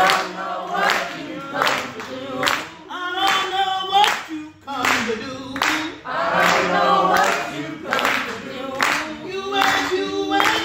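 A church congregation singing a gospel song together, with a steady hand-clap on the beat, about one clap a second.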